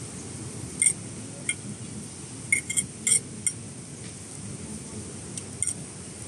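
Metal cutlery clinking against tableware during a meal: about seven short, ringing clinks at irregular intervals.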